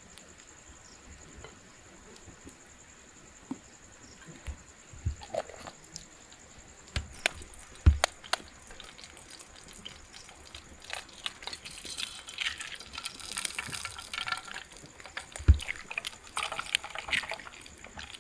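Water pouring and splashing amid scattered knocks and clicks, busier in the second half, over a steady high-pitched insect trill.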